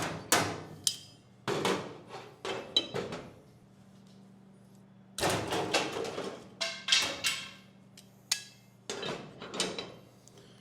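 Irregular metal clanks and knocks, some with a short ringing, from handling the sheet-metal roof patch panel on a classic Chevy C10 truck cab. They come in four clusters with pauses between, over a steady low hum.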